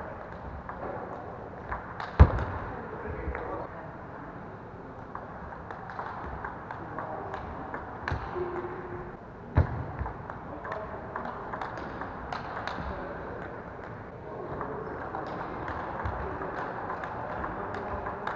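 Table tennis balls clicking off bats and table in quick rallies, with voices chattering in the background. Two much louder sharp thuds stand out, about two seconds in and near the middle.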